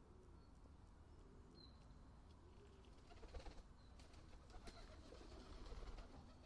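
Feral pigeons cooing faintly, a low call repeated over and over, with a few light clicks in the middle.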